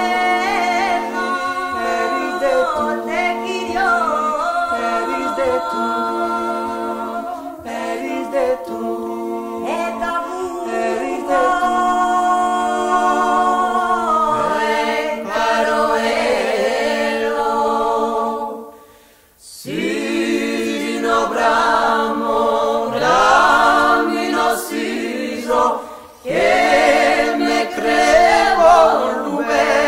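Small a cappella vocal group singing polyphony in Occitan: several voices weave in close harmony over a low drone note held steadily. The singing breaks off for a moment about two-thirds of the way through and starts again, with a short catch of breath a few seconds later.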